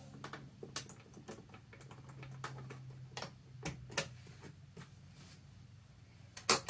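Irregular small metal and plastic clicks and ticks as a presser foot is fitted onto a PFAFF Synchrotronic 1229 sewing machine, with a sharper click near the end.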